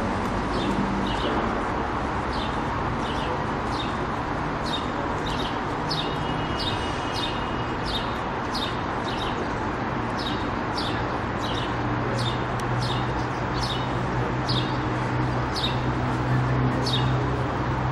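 A small bird chirping over and over, about two short high chirps a second, against steady street noise. A low engine hum grows louder in the second half.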